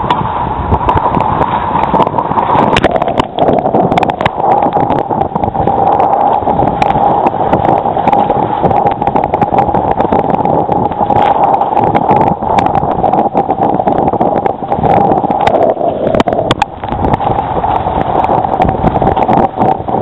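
Water rushing and splashing against the hull of a Hobie Mirage Adventure Island sailing trimaran moving through choppy water, with wind buffeting the microphone. Frequent sharp slaps and knocks of waves and spray on the hull break through a loud, steady rush.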